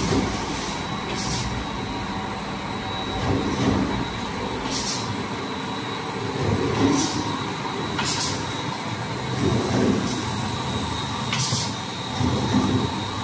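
Paper straw making machine running: a steady mechanical din with a thin, steady high whine, slow swells every few seconds, and several short hisses at uneven gaps.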